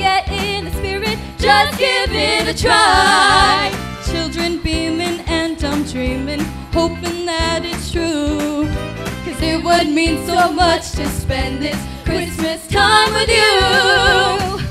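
Female voices singing into microphones over a backing track with a steady beat, holding long notes with vibrato about three seconds in and again near the end.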